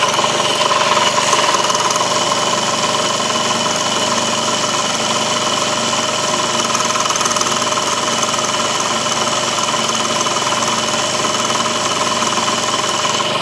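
Benzhou YY50QT scooter engine running steadily at idle, with the vibration and rattling the owner is showing as a problem.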